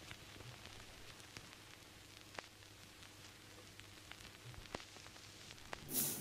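Faint hiss with scattered small clicks, then near the end a beer bottle's crown cap pried off with a bottle opener: a short, sharp hiss of escaping gas.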